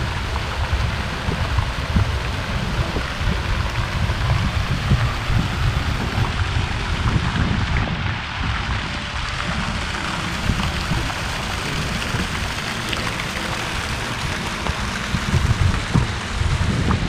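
Rows of fountain jets splashing into a shallow pool, a steady hiss of falling water, with an uneven low rumble underneath.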